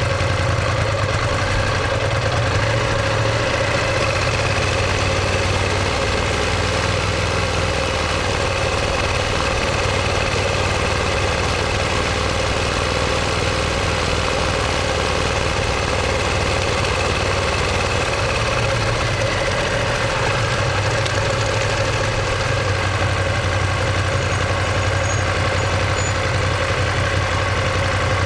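Ducati Monster 1200S's L-twin engine running at a steady engine speed, heard through its exhaust, with a slight change in tone about two-thirds of the way through.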